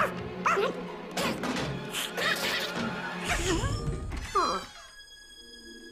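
Cartoon score with a cartoon dog's yelps and barks and quick slapstick sound effects. Near the end it drops to a quieter held chord.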